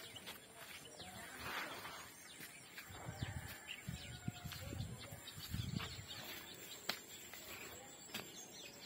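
Faint birds chirping and calling, many short falling notes. A few low rumbles come between about three and six seconds in, and a single sharp click comes about two-thirds of the way through.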